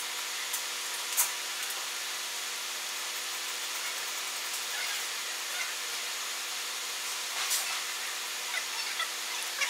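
Steady machine hiss from a DLP resin 3D printer with faint humming tones, broken by a few light clicks, about a second in and near the end.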